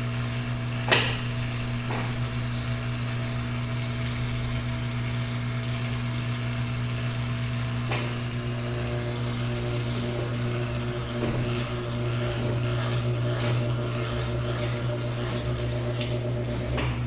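Electrolux LT13B 13 kg top-loading washing machine running with a steady low hum, with a few sharp clicks about a second in, around the middle and near the end.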